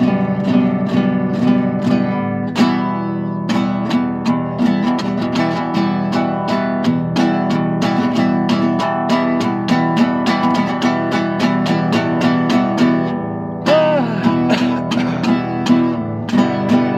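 Acoustic guitar played freestyle: a quick, unbroken run of picked notes and strums, several a second.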